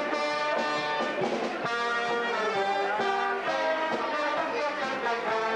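Live band music with trumpets among the brass, playing a tune in held notes that change pitch steadily.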